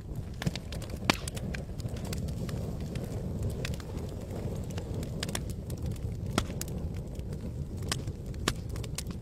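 Campfire crackling, with sharp pops scattered irregularly, the loudest about a second in and again around six and a half seconds, over a steady low rumble.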